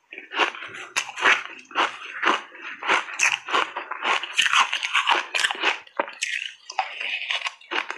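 Close-miked crunching and chewing of refrozen ice chunks coated in matcha powder, a quick irregular series of crisp crunches.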